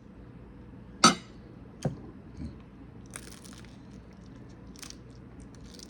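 A person biting and chewing crunchy food close to the microphone: a loud sharp crunch about a second in, a smaller one just after, then softer crunching bursts.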